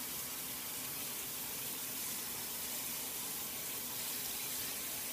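Tap water running steadily into a bathroom sink, an even hiss.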